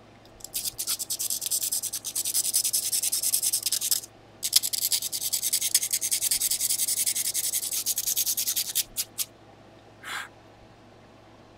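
Graphite pencil point stroked rapidly back and forth on the 150-grit sandpaper of a homemade sanding block to sharpen it: a fast scratchy rasping in two long runs with a brief break about four seconds in, then a few single strokes.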